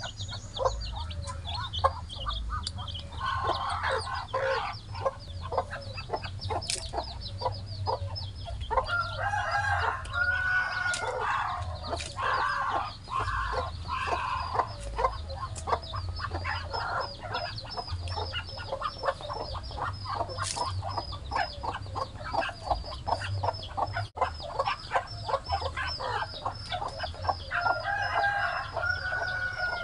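A hen and her chicks: the chicks peep steadily at a high pitch, and louder, longer chicken calls come in around four seconds in, again from about nine to fifteen seconds, and near the end.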